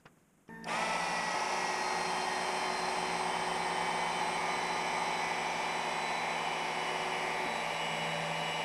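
Router spindle of a DIY CNC machine switching on about half a second in and running at a steady speed. A brief rising whine comes as it spins up.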